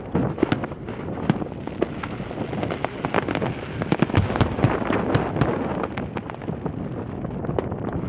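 Aerial fireworks display: many sharp bangs from bursting shells in quick succession, thickest around the middle, over a continuous din.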